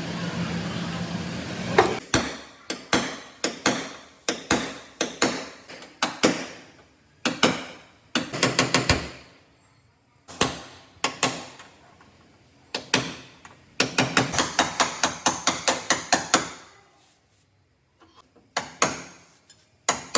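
Hammer blows on the sheet-metal body panel of a Hyundai Grand i10 as a dent in the back panel is beaten out, struck in short series with a sharp metallic ring, some in rapid flurries. A steady machine hum cuts off about two seconds in, before the hammering starts.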